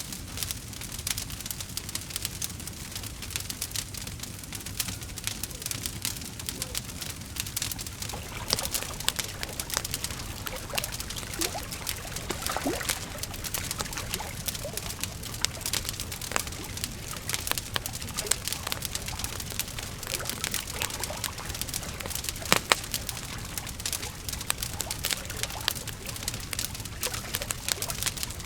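Campfire crackling steadily, with dense snaps and pops over a low hiss. A few short squeaky tones come near the middle, and one sharper pop comes about two-thirds of the way through.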